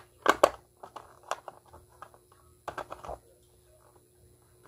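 Clicks and clatter of the base of a toy school bus coin bank being pressed back into place by hand: a few sharp knocks, loudest in the first half second and again in a short cluster about three seconds in.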